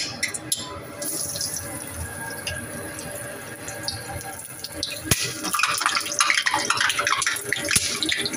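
Breadcrumb-coated bread rounds sizzling as they shallow-fry in hot oil in a non-stick pan. The hiss starts about a second in. About five seconds in there is a sharp knock, and after it the sizzle turns louder and more crackly.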